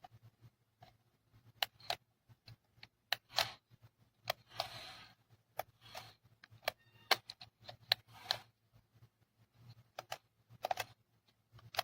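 Small toy RC monster truck driven in short stops and starts: irregular light plastic clicks and knocks, with a few brief spurts of its small electric motor.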